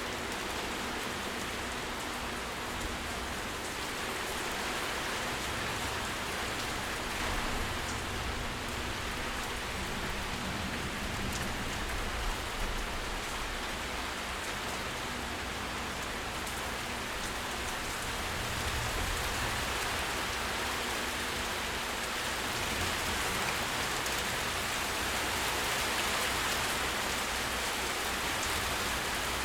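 Steady, heavy rain falling and pattering on surfaces, an even dense hiss with scattered drop ticks, growing slightly louder in the second half.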